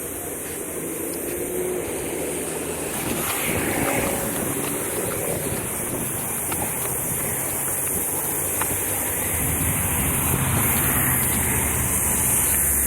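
Cicadas buzzing in a steady, high drone over the rush of passing road traffic, the traffic growing louder toward the end.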